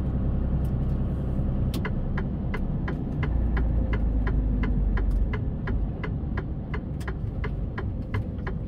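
Truck's diesel engine running at low speed, heard inside the cab, with a turn-signal indicator ticking steadily from about two seconds in, a little over two ticks a second.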